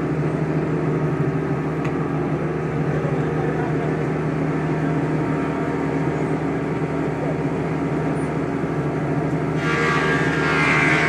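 A steady mechanical hum with an even low pitch, like a running motor. Near the end a higher hissing noise joins it.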